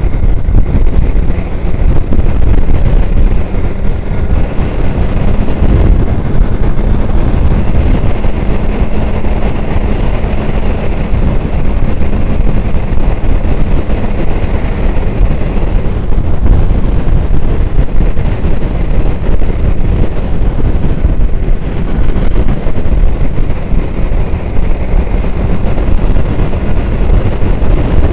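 Wind buffeting a microphone on a moving motorcycle: a loud, steady low rush, with a faint engine hum beneath it in roughly the first half.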